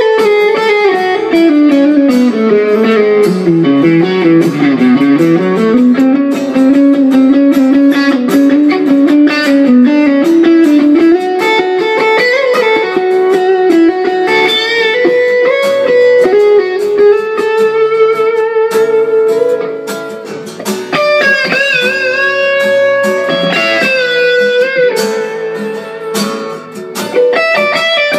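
Guitar improvisation: a single melodic line that glides down in pitch a few seconds in and climbs back up, then carries on as a melody with wavering, vibrato-like higher notes in the last third.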